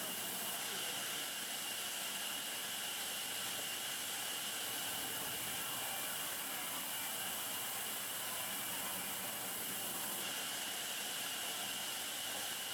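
A steady, even hiss with no rhythm or changes.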